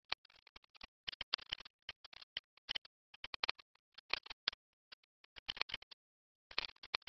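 Stylus scratching on a drawing tablet in quick clusters of short strokes, with brief pauses between bursts as each brush stroke is laid down.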